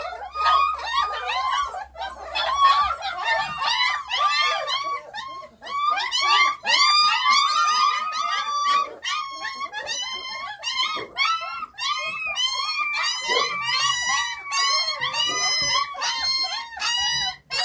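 A litter of three-week-old Mioritic Shepherd puppies whining and squealing together at feeding time: many overlapping high-pitched cries, each rising and falling, several a second, with no break.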